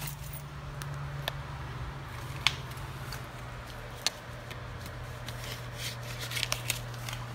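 Scattered clicks and rustling from rummaging through clothing pockets, over a steady low hum.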